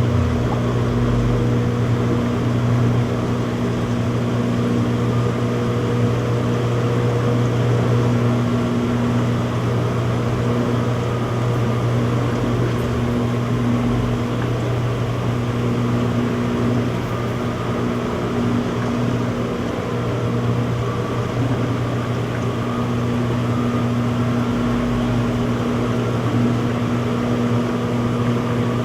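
Front-loading washing machine in its spin cycle: a steady, even hum from the spinning drum and motor, with a fainter higher tone that fades in and out.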